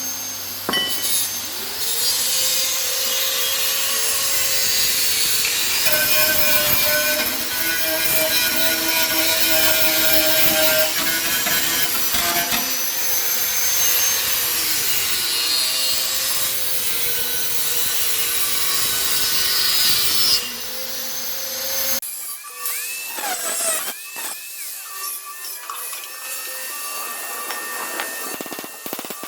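A handheld power tool grinding or cutting metal bodywork, its motor pitch dipping and rising under load. It stops about 20 seconds in, and a quieter tool then runs on with a wavering pitch.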